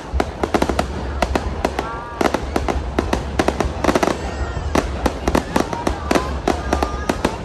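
Fireworks going off in a dense, irregular barrage of sharp cracks and bangs, several a second, over a low rumble.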